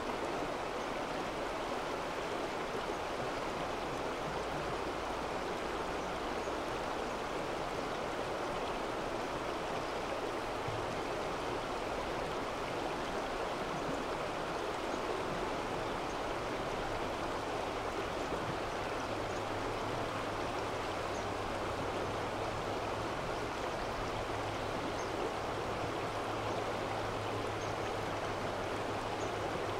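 Mountain stream rushing over rocks, a steady, even wash of water.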